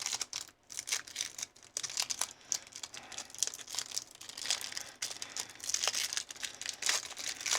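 Foil wrapper of a Pokémon booster pack crinkling and being torn open by hand: a dense, irregular crackle that gets louder near the end.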